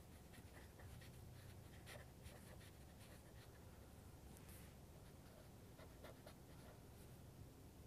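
Faint scratching of a black BIC felt-tip marker on paper: many short, quick strokes as shading and texture are inked in.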